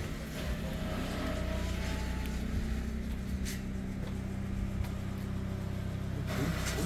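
Steady low hum of a vehicle running, with no change in pitch.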